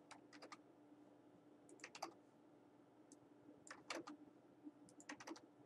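Faint computer keyboard typing and mouse clicks: a few short clusters of light keystrokes about a second apart, over a faint steady hum.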